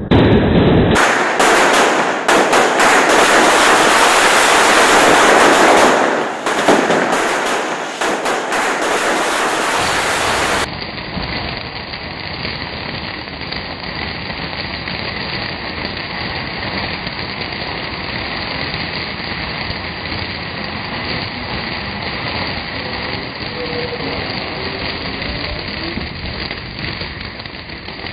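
A string of small firecrackers going off in a rapid, dense chain of bangs for about ten seconds. Then an abrupt cut to a steadier, quieter hiss.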